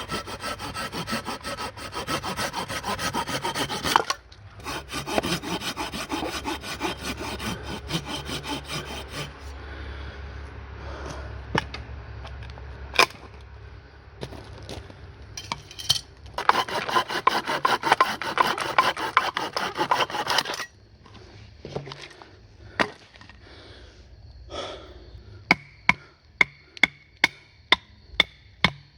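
A hand saw cutting through dry deadwood in several bouts of rapid strokes, with pauses between them. Near the end come sharp, regular knocks about twice a second: wood being split with a Mora knife.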